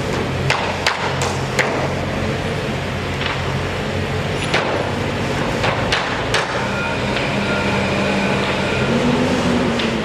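A steady engine drone with about nine sharp knocks scattered irregularly over the first seven seconds, on a bridge construction site.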